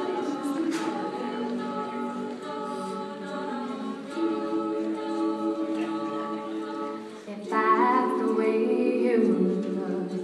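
All-female a cappella group singing wordless held chords in close harmony. The chords change every second or two, and about three-quarters of the way in the singing jumps louder and fuller as more voices come in higher.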